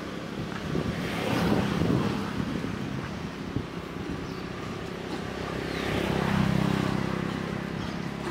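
A motor vehicle's engine running as it passes on a nearby road. Its low hum swells about a second in and again, louder, around six to seven seconds in.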